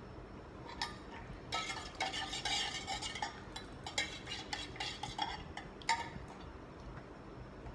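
A metal spoon stirring 2-in-1 instant coffee in a cup, with quick clinks and scraping against the cup for a few seconds. A few separate sharp clinks follow before it stops.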